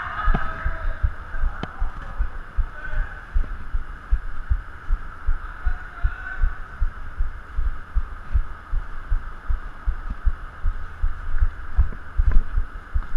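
Dull low thumps, about two or three a second, from a player's running footsteps jolting a body-worn action camera, over steady background noise.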